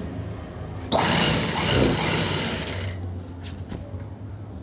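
Industrial sewing machine stitching a seam in one run of about two seconds, starting abruptly about a second in, over a steady low hum.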